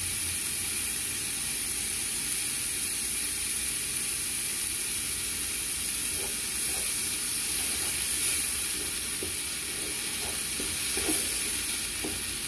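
Tomato and spring onion sauce sizzling steadily in a frying pan. From about halfway, a slotted spoon stirs it, with short scrapes and clicks against the pan.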